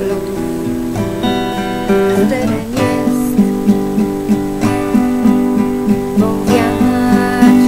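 Acoustic guitar played solo, picking and strumming chords in a steady, even rhythm in an instrumental passage of a slow ballad.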